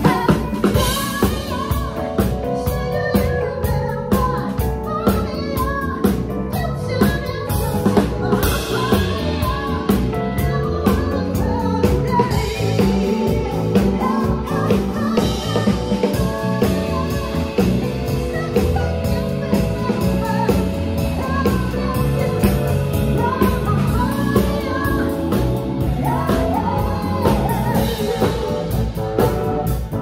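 A small live band playing a song: a woman singing into a microphone over a drum kit, electric bass guitar and keyboards, with regular drum hits throughout.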